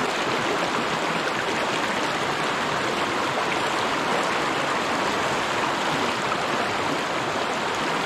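Fast, shallow trout stream rushing over rocks and ledges, a steady even rush of whitewater close by.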